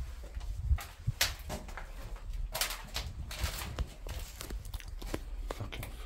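Footsteps and scuffing on a hard floor, with scattered knocks and clicks and a few longer scraping or rustling noises around the middle.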